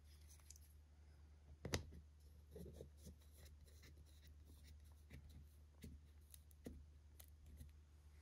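Plastic screw cap put on a small plastic bottle and twisted shut. There is a sharp click just under two seconds in, then faint scattered ticks and scrapes from the cap and threads.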